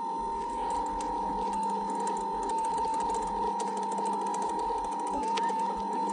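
Electric motor and drive mechanism of a coin-operated scooter kiddie ride running with a steady whine and faint rapid ticking. No music plays because the ride's sound unit is mute, which the rider suspects is a fault.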